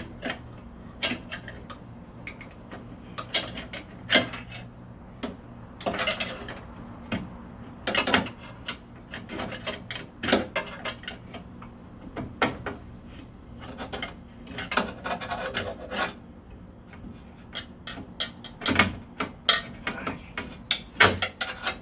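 Screwdriver prying at the window hardware inside a car door: irregular metal clicks, knocks and short scrapes as the window track is worked toward its mounting hole.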